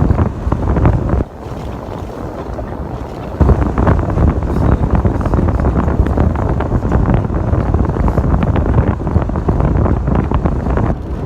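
Heavy wind buffeting the microphone as a loud, low rumbling rush. It drops off suddenly about a second in and surges back a couple of seconds later.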